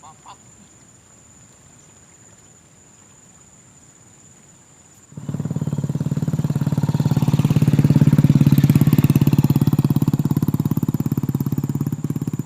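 Faint outdoor background, then about five seconds in a small engine comes in suddenly close by and runs loudly with a fast, even firing beat.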